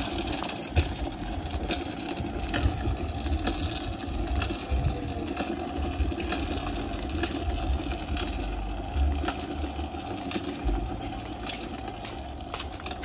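A homemade goped pushed by hand with its engine off: small wheels rolling over rough concrete with a steady rumble, and frequent clicks and rattles from the frame and loose parts.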